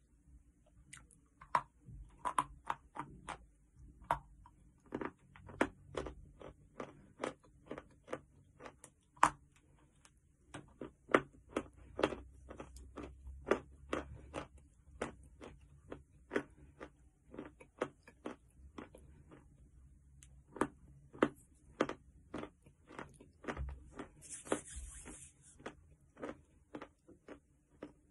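Chewing chalk: a chunk of white chalk being bitten and crunched between the teeth close to the microphone, a steady run of sharp crunches about two a second. A brief hiss sounds near the end.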